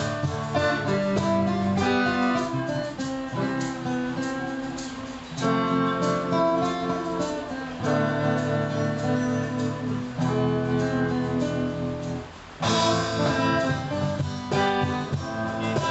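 Band playing an instrumental passage led by strummed acoustic guitar, with chords held over a bass line and no singing. The music dips briefly about twelve seconds in, then comes back at full level.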